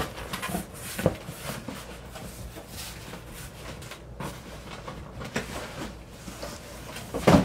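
Cardboard boxes being opened and handled: flaps and packaging rustling with scattered knocks, a sharp knock about a second in and a louder thump near the end as a cardboard shoebox is lifted out of a shipping box.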